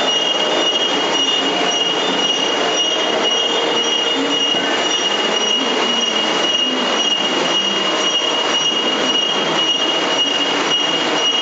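Industrial metal-ware degreasing and washing line running: a steady, loud mechanical noise from its burner and blower motors, with a constant high-pitched whine.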